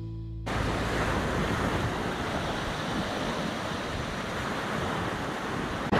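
A steady rush of wind and sea noise outdoors. It starts abruptly about half a second in, as the tail of acoustic guitar music cuts off.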